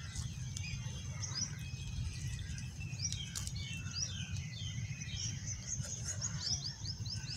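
Birds chirping in short, quick downward-sliding notes, with a rapid run of about five chirps near the end, over a steady low rumble.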